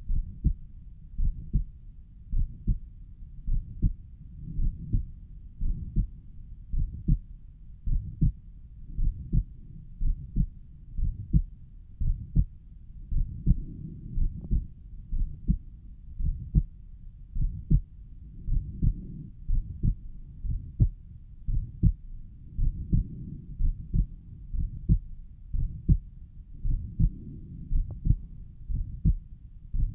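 A person's heartbeat recorded over the pulmonic valve area: a steady lub-dub, about one beat a second. Between the two heart sounds there is a murmur, which the owner takes for a mid-systolic murmur.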